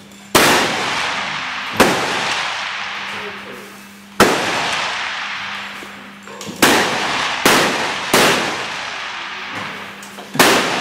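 Seven rifle shots from benchrest rifles on the firing line, irregularly spaced, each a sharp crack followed by a long echoing decay.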